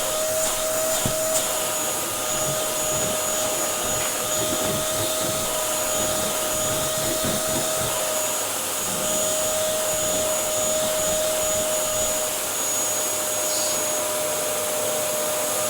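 Dyson DC07 upright vacuum cleaner running steadily: a motor whine held at one pitch over the rush of air, with a few light knocks.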